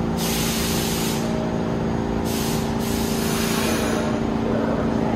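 New York City subway train's air brakes hissing in two bursts, the second shorter, over the steady hum of the train standing at the platform.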